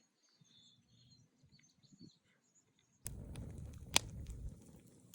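Faint bird chirps. About three seconds in, a louder low rumbling noise starts suddenly, with one sharp crack a second later.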